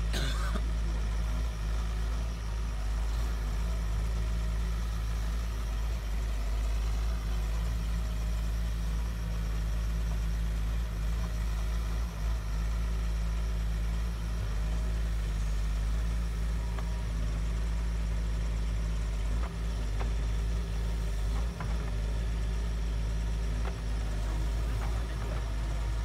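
Doosan DX140W wheeled excavator's diesel engine running steadily at low revs, a constant low hum, with a few faint knocks from the working machine in the second half.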